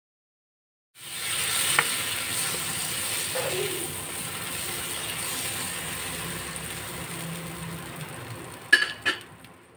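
A tortilla frying in oil and birria consommé in a nonstick pan: a steady sizzle that starts about a second in and slowly fades. Near the end come two sharp knocks of the wooden spatula on the pan.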